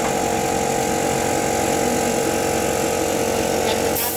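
An engine running steadily with a constant hum, which stops about four seconds in with a short click.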